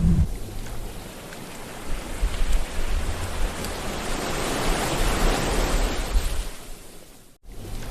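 Sea waves breaking and washing on a shore, a swell of surf building to a peak about halfway through and then fading. The sound cuts out for an instant near the end, then resumes.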